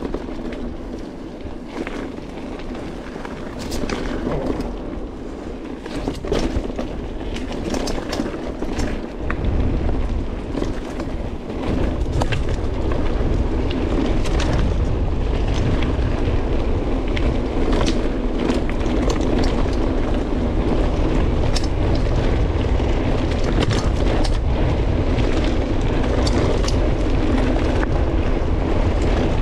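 Mountain bike riding fast along a dirt track: tyres rolling over the ground while the bike rattles and clicks over bumps and stones. A deep wind rumble on the action camera's microphone grows louder about ten seconds in.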